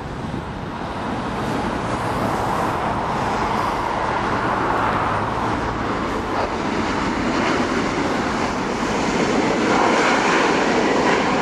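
Jet noise from an Airbus A340-300's four CFM56 turbofan engines, building steadily louder as the airliner approaches.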